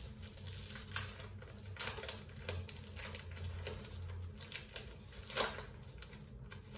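Knife slitting and pulling apart clear plastic wrap, giving irregular crackles and rustles of the film; the loudest crackle comes about five and a half seconds in.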